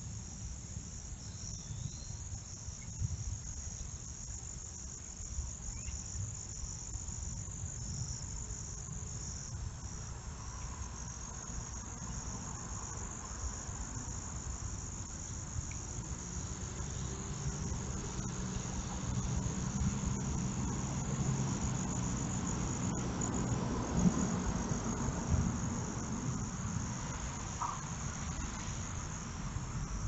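Steady chorus of crickets and other insects trilling at a high pitch, over a low background rumble, with one brief thump late on.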